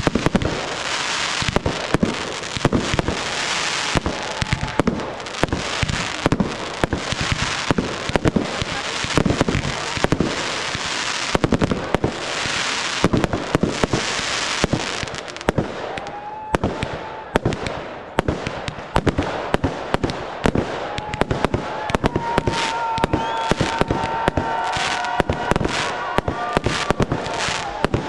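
Aerial fireworks display: a dense, continuous barrage of launch thumps and bursting shells. In the second half, steady high whistling tones, typical of whistling fireworks, sound over the bangs.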